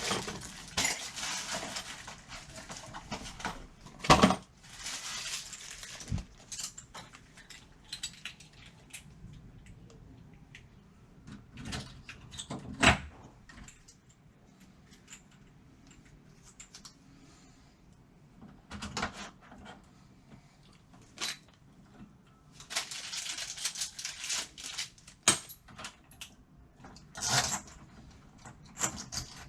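Metal lock hardware being handled and worked on a door: scattered clinks and knocks, with a few stretches of scraping lasting a second or two.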